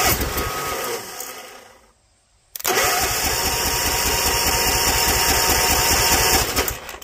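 Bolens ST110 garden tractor's engine being cranked over by its starter in two bursts, a short one fading out and then a longer steady one of about four seconds, turning over without catching. The engine is on choke at full throttle with its valves freshly set tight, and only comes close to firing.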